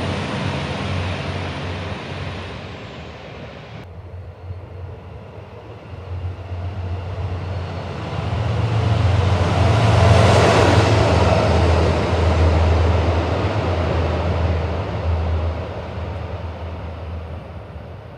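Diesel locomotive running through a station, with a deep steady engine throb and rail noise that swell as it passes, loudest about ten seconds in, then fade away. The first few seconds are another diesel train's running noise, which breaks off abruptly.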